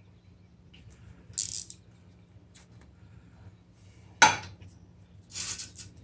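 Metal parts and tools clinking and rattling as an intercooler core is worked out of a supercharged intake manifold by hand. There are short scrapes, and a sharp metallic clack about four seconds in is the loudest. A steady low hum runs underneath.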